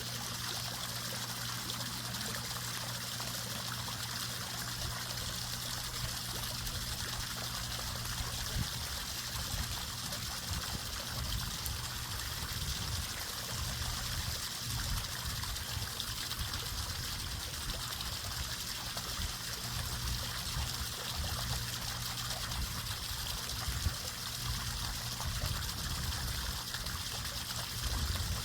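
Water trickling steadily, with an irregular low rumble like wind on the microphone.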